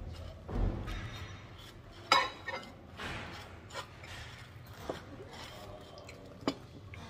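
Cutlery clinking against plates and dishes now and then: one sharp clink about two seconds in, then a few lighter clicks.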